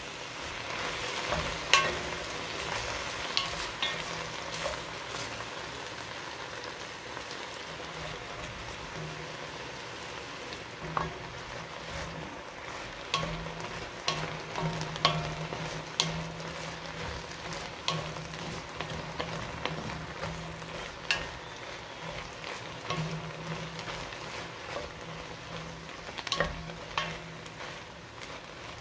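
Sliced onions dry-roasting without oil in an enamelled cast-iron pot, sizzling steadily after a splash of water as they are stirred in, with scattered knocks of the stirring utensil against the pot.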